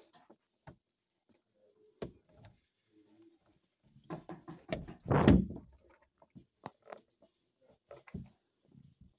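Interior door and the phone handled against its edge: scattered clicks and knocks as the door moves, with one louder thump about five seconds in.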